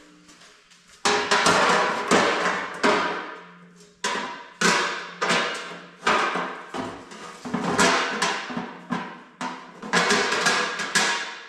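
Hammer striking sheet-steel panel work in a steady run of blows, roughly two a second, each ringing briefly.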